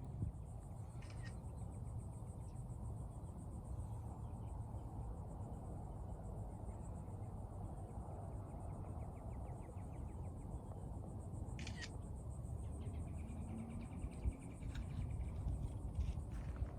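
Insects trilling steadily in a fast, high-pitched pulse over a low rumble, with a few brief chirps or clicks.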